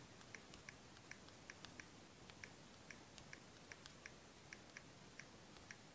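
Faint, quick key clicks of typing on a smartphone's on-screen keyboard, about three a second and unevenly spaced.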